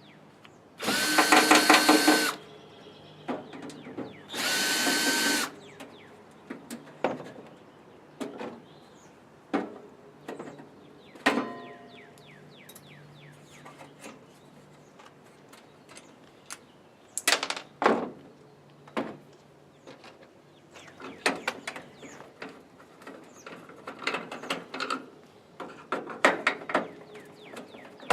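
Power drill-driver running in two short bursts of about a second each, a steady motor whine, as screws are driven out of a toaster oven's casing; after that come scattered clicks and taps of small parts being handled.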